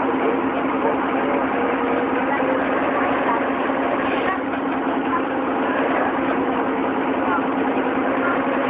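Vintage sports car's engine idling steadily at low speed as the car creeps forward, with spectators' chatter over it.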